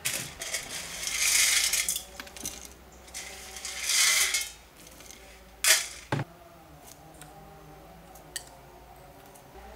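Roasted split gram (pottukadala) poured into a stainless steel mixer-grinder jar: a dry rattling hiss of hard lentils hitting metal, in two pours, about a second in and again around four seconds. Two sharp metallic clinks follow about six seconds in.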